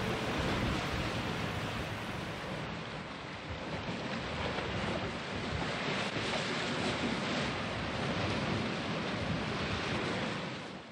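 Sea surf and wind along a beach: a steady rushing noise that fades out at the very end.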